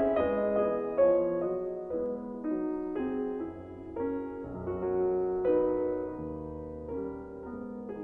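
Background music: a piano playing a gentle melody over held chords, notes starting one after another and fading.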